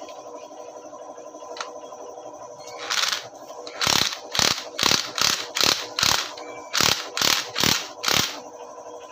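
Cordless impact wrench run in about ten short trigger bursts, roughly two a second, starting about three seconds in, as it works the clutch hub nut of a motorcycle engine.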